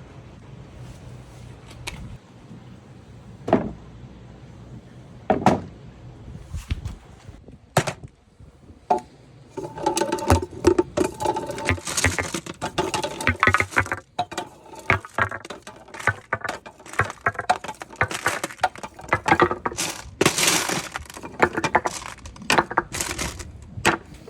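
Hard balls rolling down a wooden marble run: a few single knocks at first, then from about ten seconds in a dense, clattering run of clicks as balls bounce and clack against the track and each other.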